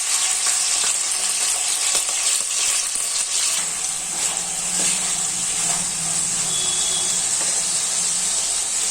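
Chicken pieces sizzling in hot refined oil in a frying pan: a steady hiss with light crackling.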